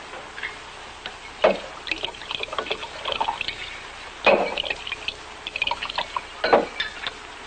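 Scotch being poured at a drinks tray: glass decanter and tumblers clinking, with three sharper clinks spread through and smaller glassy ticks and liquid running between them.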